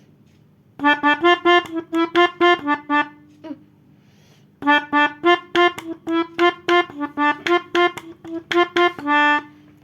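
A pianika (mouth-blown melodica) playing quick runs up and down over the three neighbouring notes 2 to 4 of a number-notation scale, a finger-practice exercise. It plays two bursts of rapid notes with a pause of about a second and a half between them, the second burst ending on a note held for about half a second.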